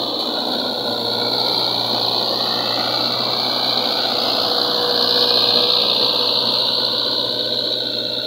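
Mahindra tractor's diesel engine running steadily under load as it hauls a loaded trolley through mud, growing a little louder around the middle.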